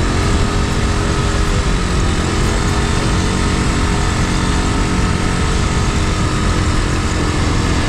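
An engine running steadily at a constant speed, with a rough rushing noise over it.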